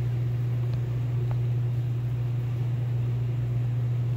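A steady, unbroken low mechanical hum.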